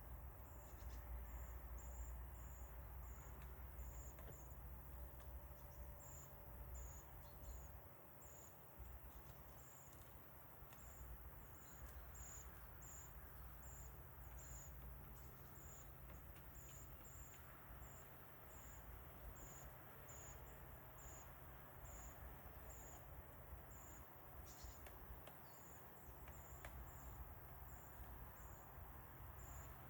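A cricket chirping: a short high-pitched chirp repeated about twice a second, with a few brief pauses, over a faint low rumble.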